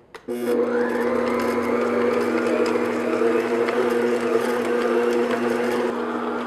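Stand mixer switched on just after the start and running steadily at its second speed, its flat beater working butter into brioche dough: a steady motor hum.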